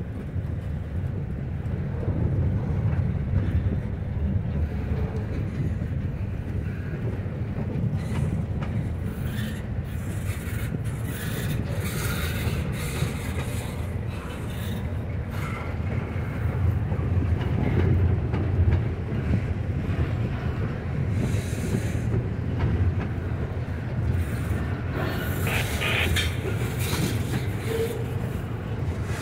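Intermodal freight train's container well cars rolling past: a steady low rumble of steel wheels on rail, with scattered clicks as wheels cross rail joints.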